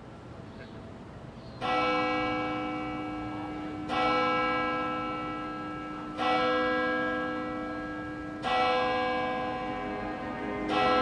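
A single church bell tolling slowly: four strikes about two and a quarter seconds apart, each ringing on and fading before the next.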